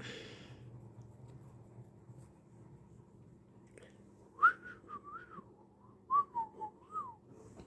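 A person whistling a few short notes that slide up and down, starting about halfway in, after a brief rustle at the start.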